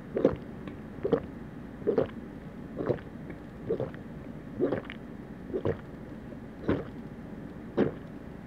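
Close-miked gulping as a person drinks Milkis milk soda from a cup, swallowing steadily about once a second, nine swallows in all.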